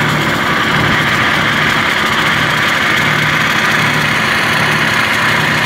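Compressed air hissing steadily out of a hydrovac truck's water-line fitting, blowing out the last of the water as a fine spray, with the truck's engine idling underneath.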